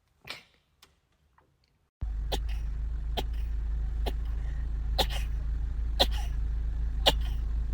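One sneeze near the start. Then, over a steady low hum, a person sneezes six times in quick succession, short sharp sneezes about once a second.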